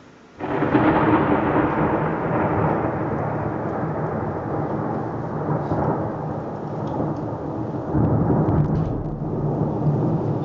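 Thunder from a lightning discharge during a thunderstorm: it breaks out suddenly about half a second in and rumbles on, swelling again about eight seconds in.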